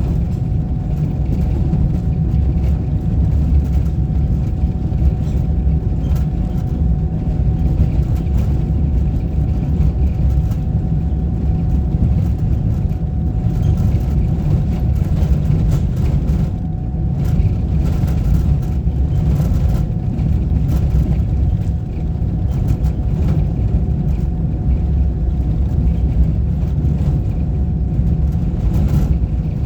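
Road vehicle driving at a steady pace: continuous low engine and road rumble, with a faint steady whine above it.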